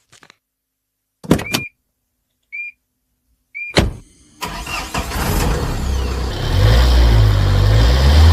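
A few sharp clicks with short high beeps, then the Tata Safari's engine starts about four seconds in and runs with a steady low rumble.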